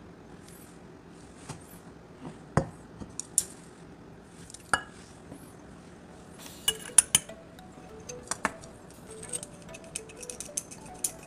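Scattered light clinks and taps of a small ceramic dish against a stainless steel measuring cup, with wooden chopsticks knocking and scraping as mustard powder is tipped in; a sharper cluster of clinks comes about seven seconds in. Faint background music runs under the second half.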